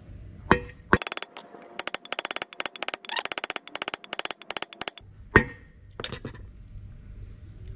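Hammer blows on a wooden block driving a new pivot bush into a motorcycle swing arm. One sharp knock, then a rapid run of sharp taps for about four seconds, then one loud knock and a few lighter ones.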